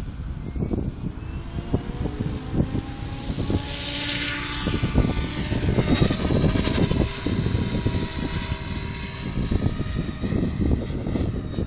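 Radio-controlled F3C helicopter flying overhead, its rotor and motor whine rising and then falling in pitch as it passes, loudest about four seconds in. Wind buffets the microphone throughout.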